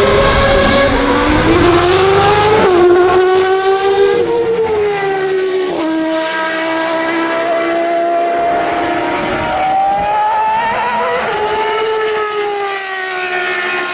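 Formula One car's racing engine at high revs, its pitch climbing and then dropping sharply at each gear change, several times over, with slower glides down as it slows.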